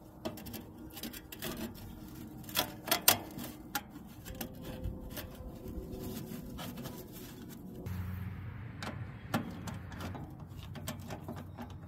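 Faint metallic clicks, taps and scraping as a rolled galvanized sheet-metal tube is worked onto a smoker's smoke outlet pipe and a hose clamp around it is tightened with a screwdriver. A low steady hum comes in about eight seconds in.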